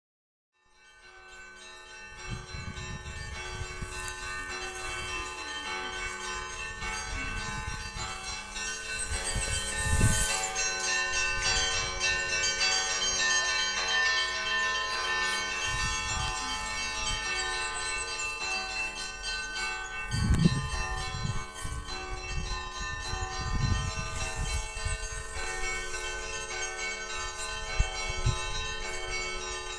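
Church bells ringing in a continuous peal, several bells of different pitches struck over one another, fading in over the first two seconds. A few low thumps break in now and then.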